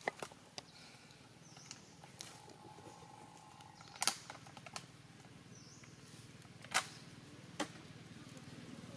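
A handful of sharp, scattered clicks or taps, the loudest about four seconds in and again near seven seconds, over a low steady hum.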